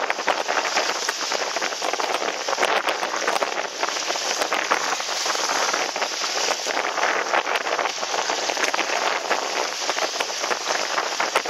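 Water spray and chop splashing and rushing against a small sailing trimaran's hull as it sails fast through rough water: a dense, steady spattering hiss full of small splash clicks.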